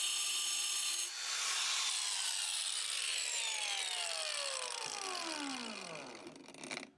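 Electric power tool cutting floor tile runs at full speed, then is switched off about a second in and winds down, its pitch falling steadily for several seconds until it stops.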